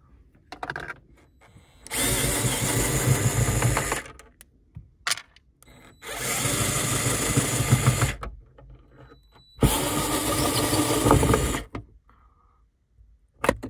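DeWalt cordless driver running in three bursts of about two seconds each, one for each of the three screws it backs out of the rearview mirror mount. A brief knock comes near the end.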